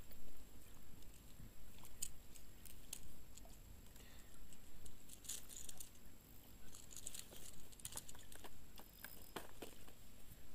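Irregular small clicks, scratches and wet rustles from a landing net holding a lively pike as it is handled, the fish stirring in the wet mesh and the net frame knocking, in clusters.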